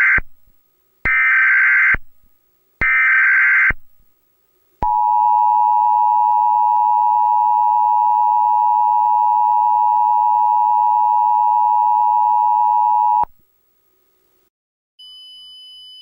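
Emergency Alert System tones: the end of one SAME digital header burst and two more, each just under a second, followed by the EAS attention signal, a steady two-tone beep of 853 and 960 Hz held about eight seconds and cutting off abruptly. A faint steady high tone starts near the end.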